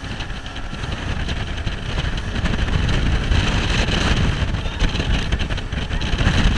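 Loud wind buffeting on the microphone with rushing water and spray as an inflatable boat runs fast through choppy water.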